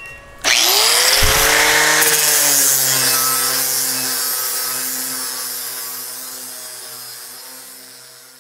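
Angle grinder spinning up about half a second in and grinding the sheet-steel edge of a truck cab's rear-window opening. It then runs steadily and fades out gradually over the last few seconds.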